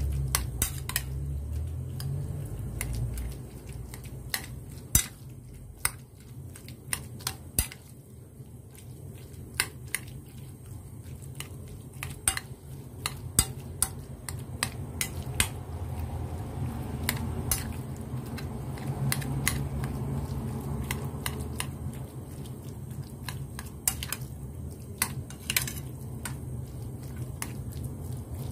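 A metal spoon mashing soft tofu in a glass bowl, with irregular sharp clinks and scrapes as it strikes the bowl, over a low steady hum.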